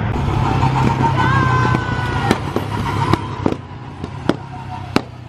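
Petrol go-kart engines running on a track: a steady low drone with higher whining tones, turning quieter about halfway through. Several sharp clicks or pops stand out above it.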